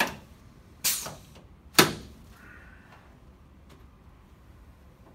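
Three sharp thumps about a second apart in the first two seconds as chiropractic adjusting thrusts are delivered to the back of a patient lying face down on the adjusting table.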